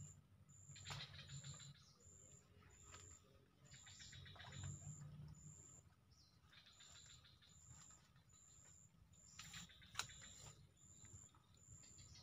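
Near silence with faint, high-pitched chirps repeating evenly, about three every two seconds, from a small animal in the swamp. Soft rustles come and go, and there is a single sharp click about ten seconds in.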